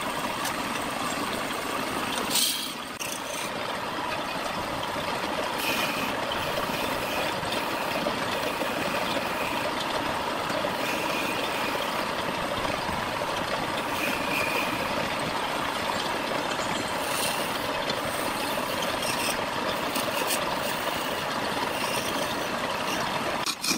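Electric wood lathe running while the spinning wood is worked: briefly hand-sanded, then, from about two and a half seconds in, cut with a turning tool. A steady scraping noise of the tool shaving the wood.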